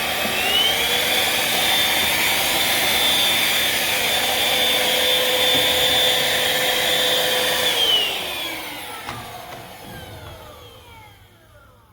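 Black+Decker Powerseries+ 20V Max cordless stick vacuum running with a high motor whine that rises in pitch just after the start and then holds steady. About eight seconds in the motor stops, and the whine slides down in pitch as it winds down and fades away.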